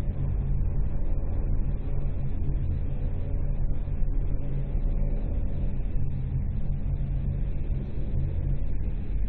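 Soyuz ST-B rocket's first- and second-stage engines firing in the climb after liftoff, a deep, steady rumble heard from the ground.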